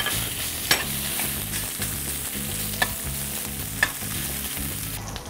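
Diced pork belly sizzling in sesame oil in a frying pan, stirred with a slotted metal turner. The sizzle runs steadily and stops shortly before the end, with four sharp clicks of the turner knocking against the pan.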